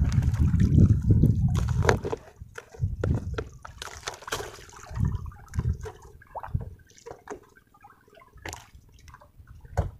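A low rumble for about the first two seconds, then water sloshing and dripping against the side of a small boat, with scattered clicks and rubs from hands and clothing close to the microphone.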